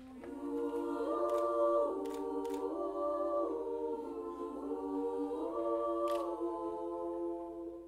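A mixed-voice a cappella group singing held chords, the harmony shifting to a new chord every second or two. A few short, sharp clicks sound over the singing.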